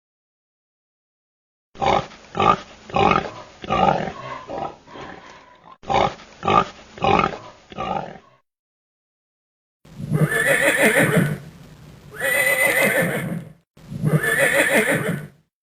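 Recorded animal calls: a horse whinnying in a run of quick pulses, then, from a separate recording, three long, deep calls about a second apart.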